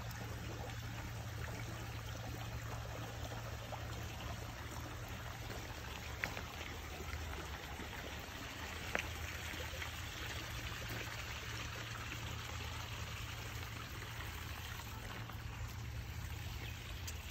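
Water trickling and pouring steadily at a garden water wheel and pond, with two brief clicks partway through.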